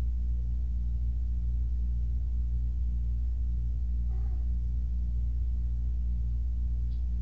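Steady low hum, with a faint short sound about four seconds in.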